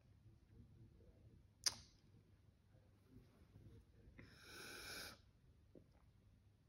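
Near silence: room tone, with one sharp click about a second and a half in and a soft hiss lasting about a second a little past four seconds in.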